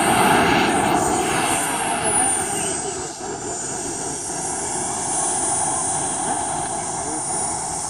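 Model turbine jet engine of a radio-controlled DV8R sport jet running as the plane taxis along the runway: a high-pitched turbine whine over a steady rush. The whine drops in pitch over the first two or three seconds, then holds steady.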